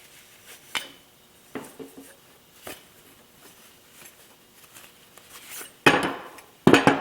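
Metal tools and bicycle crank parts being handled on a work table: scattered light clicks and scrapes, then several loud knocks and clatter starting about six seconds in.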